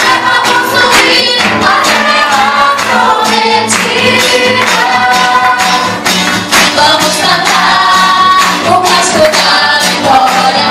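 Live gospel worship music: a woman singing lead into a microphone over a band with drums, playing a steady beat.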